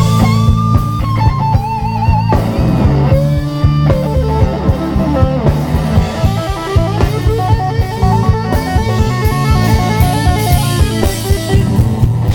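Live blues band playing: an electric guitar lead with bent, wavering notes over bass and a steady drum-kit beat.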